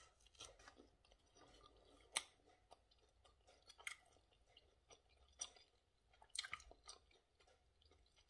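Faint chewing of a breaded chicken nugget: scattered short mouth clicks and smacks, the sharpest about two seconds in and a small cluster between six and seven seconds.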